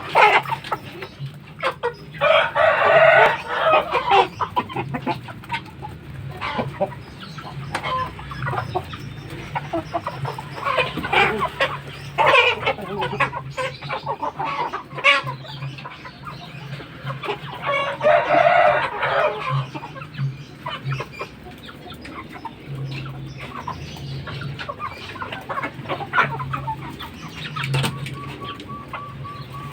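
Fighting-cock roosters crowing, a long crow about two seconds in and another about 18 seconds in, with hens and roosters clucking in between.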